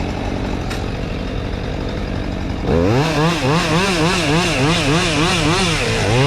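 Engine running steadily; about two and a half seconds in, a chainsaw cuts in louder, its engine pitch rising and falling in a regular rhythm, with a brief dip near the end.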